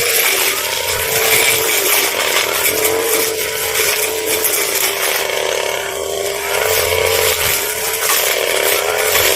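Brush cutter engine running at high revs with its blade cutting. The sound is loud and steady, its pitch wavering slightly as the blade meets the growth.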